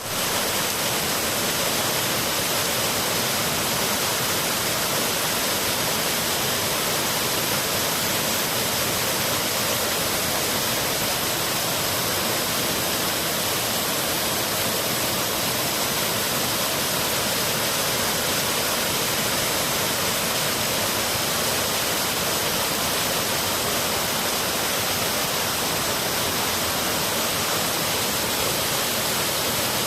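Waterfall rushing steadily, an even, unbroken hiss of falling water.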